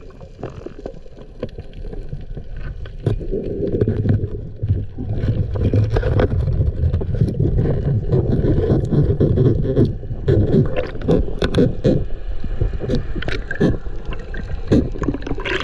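Underwater sound through a diver's action camera: a muffled low rumble and gurgling water, with many sharp clicks and crackles, getting louder a few seconds in as the diver works under a reef ledge, stirring bubbles while going after a crayfish.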